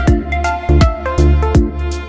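Background electronic dance music with a steady kick drum about two beats a second, hi-hats and a synth melody.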